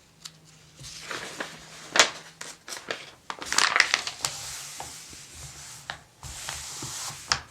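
Paper catalog pages rustling and crinkling as they are handled and turned, with a few sharp ticks and a louder tap about two seconds in.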